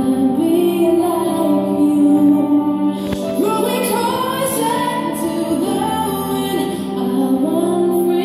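Recorded song playing: a singing voice over instrumental backing.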